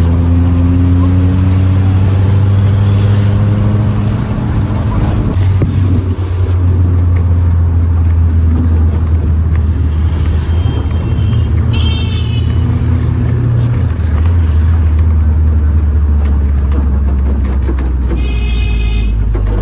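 Car driving along a town road, heard from inside: a steady low engine and road rumble, with an engine revving up in the first couple of seconds. Short horn toots sound around halfway and again near the end.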